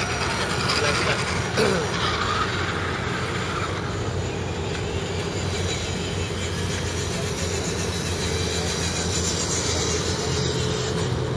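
Electric motors and geartrains of RC scale crawler trucks whirring steadily as they crawl along a dirt trail, with a short rising and falling whine about one and a half seconds in.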